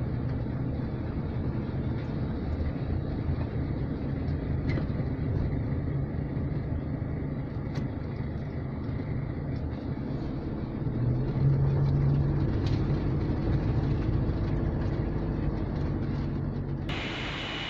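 Vehicle engine hum and tyre noise heard from inside the cabin while driving slowly over a bridge deck and onto a gravel road, with a few sharp ticks; the engine grows louder about two-thirds of the way through. Near the end the sound cuts abruptly to a steady hiss.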